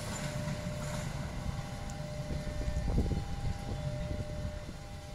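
Passenger train receding along the track, its low rumble slowly fading, with a faint steady tone held over it.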